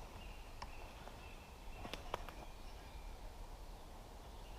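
Quiet woodland ambience: faint distant birdsong with a low rumble, broken by a few sharp clicks about two seconds in.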